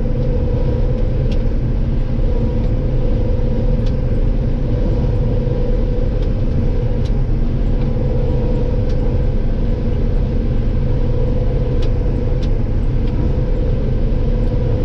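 Combine harvester running while cutting soybeans, heard from inside the cab: a steady low drone with a constant hum over it.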